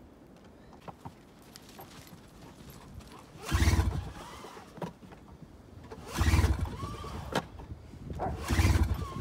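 A 2001 Ski-Doo MXZ 800 snowmobile's recoil starter pulled three times, the two-stroke engine turning over briefly with each pull but not firing, because the key is not in the ignition.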